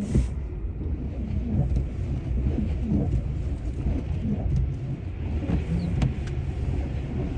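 Low, steady road and tyre rumble heard inside the cabin of a Tesla Model X, an electric car with no engine note, driving on a snowy highway. A few faint ticks sound over it.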